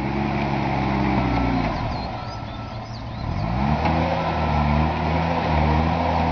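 Terex PT-60 compact track loader's diesel engine working under heavy load while pushing mud. About two seconds in the engine note sags and drops in pitch. A second and a half later it climbs back up and runs steady and strong.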